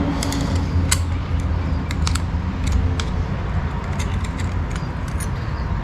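Irregular light metallic clicks and clinks from 42RE transmission parts being handled and knocked together: the sun shell and its loose, worn washer. A steady low hum runs underneath.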